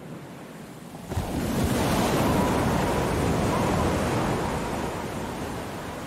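Heavy storm surf: a big wave crashes against a seawall about a second in, and its rushing water noise slowly dies away.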